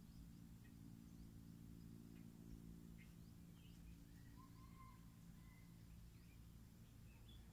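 Near silence with faint, scattered bird chirps and whistles, over a faint low hum that fades out after the middle.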